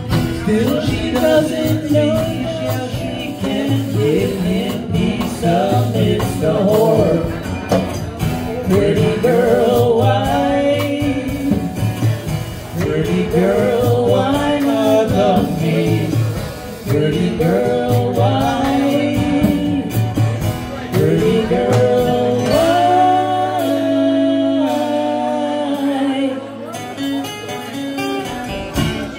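Live acoustic band playing a song: acoustic guitar and drums under sung vocals, with a long note held near the end.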